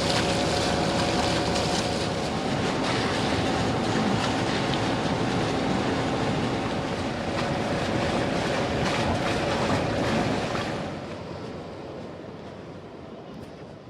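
A motor running steadily under a loud rushing, rattling noise, with a steady hum in it, fading out over the last few seconds.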